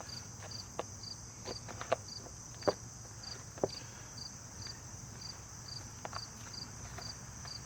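Insects chirping in a steady high trill with a regular pulse about twice a second, with a few scattered light clicks and taps over it.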